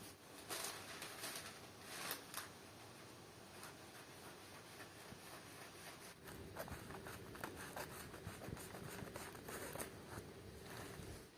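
Faint rustling and scratchy strokes of cloth being handled and marked or cut for sewing. There are a few sharp strokes in the first couple of seconds, and a denser run of rubbing and scratching from about halfway.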